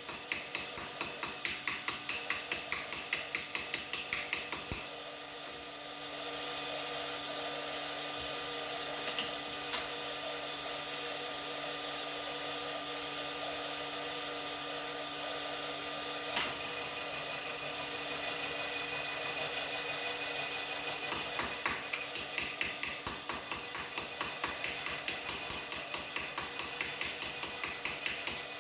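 Workshop hand-tool work: evenly repeated scraping strokes, about three a second, that stop about five seconds in. A steady machine with a low hum runs until about 21 s, then the strokes start again.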